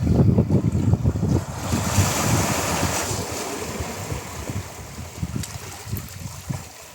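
Ocean waves breaking on a shore. A wave's hiss swells about two seconds in and slowly fades away, with low wind buffeting on the microphone at the start.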